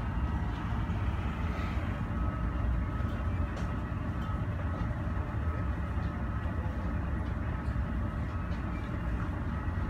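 Steady low rumble of airport apron noise, with a faint steady high tone running through it.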